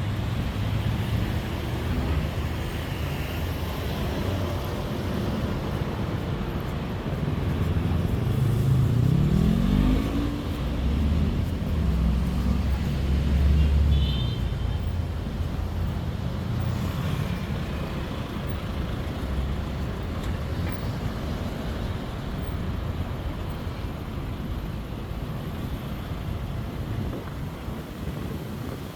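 Street traffic: vehicles passing with engines running, and one engine rising in pitch as it accelerates about nine seconds in.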